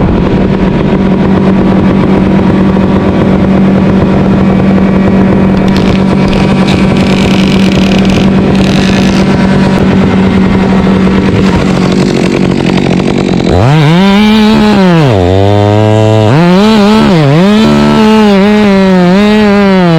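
Two-stroke chainsaw running at a steady high speed, then, about two-thirds of the way in, dropping toward idle and being revved up and down several times.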